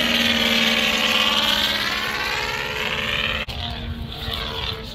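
Giant-scale radio-control aerobatic biplane's engine and propeller running steadily at high power. About three and a half seconds in the sound cuts off abruptly and a fainter engine drone carries on.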